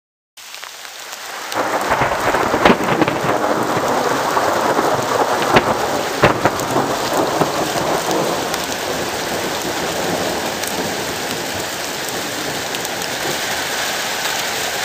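Rain sound effect: a steady heavy rain hiss that fades in over the first second or two, with a few sharp thunder cracks at about 3, 5.5 and 6 seconds.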